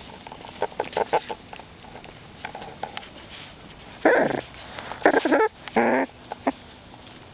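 Boxer puppies about four weeks old making small whimpering and snuffling sounds, with three short loud bursts between about four and six seconds in as a puppy's face comes right up to the microphone.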